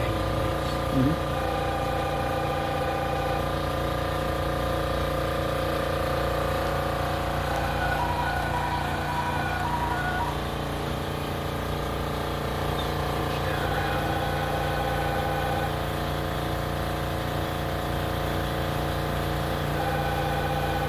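Ryobi 662H offset printing press running, a steady machine hum with a faint pulsing tone that comes and goes several times.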